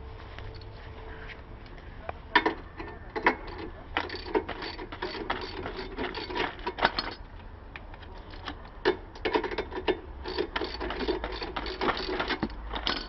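Ratchet wrench clicking in quick, uneven runs as bolts on the motorcycle's rear wheel assembly are turned, starting about two seconds in.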